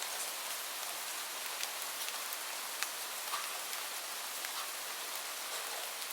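Steady rain falling: a continuous hiss with scattered sharp ticks of individual drops striking a surface.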